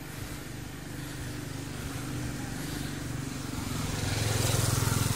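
A motor vehicle engine hums steadily and grows louder from about three and a half seconds in, with road and wind hiss rising along with it.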